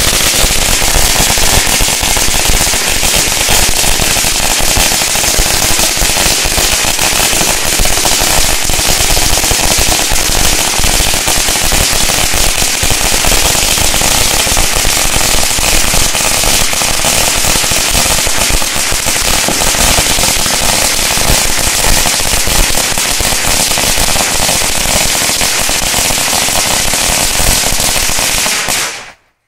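A long string of firecrackers going off as one dense, continuous rattle of rapid bangs, which cuts off suddenly near the end.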